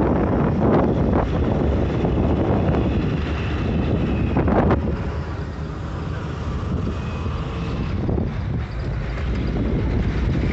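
Bus driving along a mountain road, heard from inside the cabin: a steady engine drone mixed with road and wind noise, easing off somewhat about halfway through.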